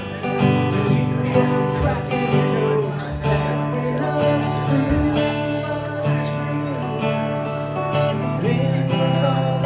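Music on strummed acoustic guitar, with some singing.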